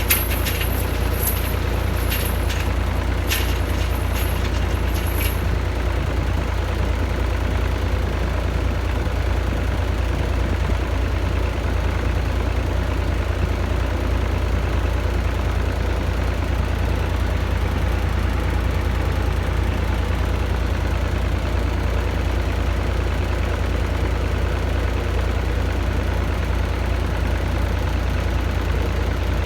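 Heavy diesel engine idling steadily, with a few sharp metallic clicks or squeaks in the first five seconds.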